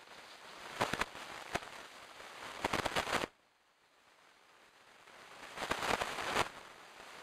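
Crackling rustle and snapping of dry leaf litter and twigs as red deer move close by, in uneven clusters of sharp crackles. It drops away abruptly a little over three seconds in, and another cluster of crackling comes near the end.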